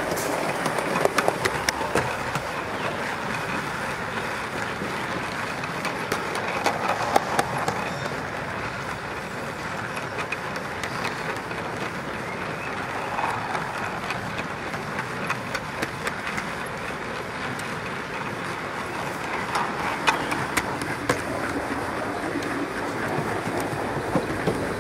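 Gauge 1 model train running along a raised garden track, heard from on board: a steady rattle of wheels on the rails with many irregular sharp clicks as they cross the rail joints.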